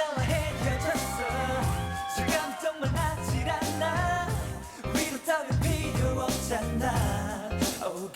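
Upbeat K-pop dance track with a steady bass beat and singing.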